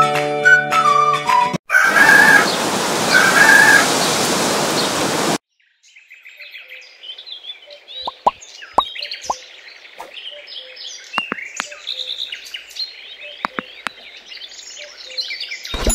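A short jingle, then a noisy whoosh with a wavering tone for a few seconds. After a brief pause comes a background of many small birds chirping, with scattered water-drop plops.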